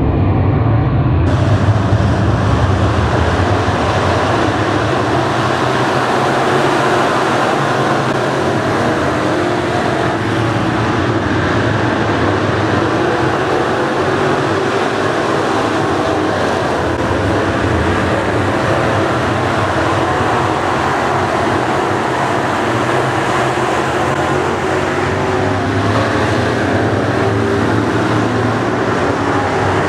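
A field of dirt late model race cars with V8 engines racing on a dirt oval, their engines blending into one loud, steady drone. About a second in, the sound switches from the in-car engine to the pack heard from trackside.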